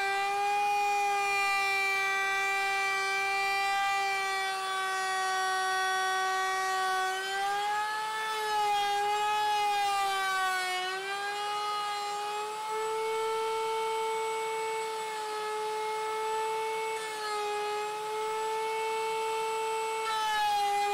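Table-mounted router running a pattern bit through the edge of a spalted maple tabletop, a high steady whine. The pitch sags and wavers as the cut loads the motor, then rises a little again.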